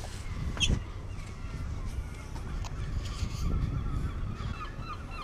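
A flock of birds calling in short, quickly repeated notes, growing busier from about halfway in, over a low rumble.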